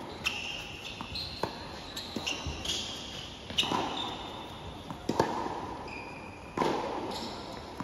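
Tennis rally on a hard court: sharp pops of racket strings hitting the ball and the ball bouncing, each with a short echo under the covered court's roof, the loudest hits coming about every one and a half seconds in the second half. Short high squeaks of tennis shoes on the court come in between the hits.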